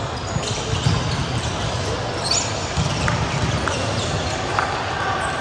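Volleyball play in a large echoing gym: several sharp hits of the ball, about a second in and again around three and four and a half seconds in, over a steady low rumble of the hall.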